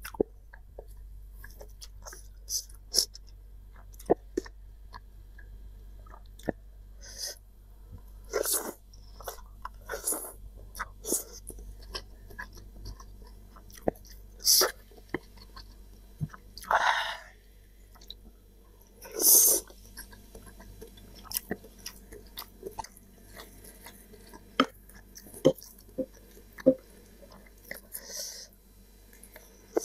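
Close-miked chewing of spicy instant cup noodles, with many small wet mouth clicks and several louder, longer mouth noises a few seconds apart.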